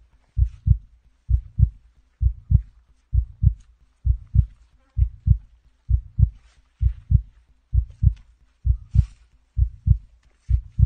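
A slow heartbeat sound: paired low thumps (lub-dub) repeating steadily about once a second, with faint rustles behind.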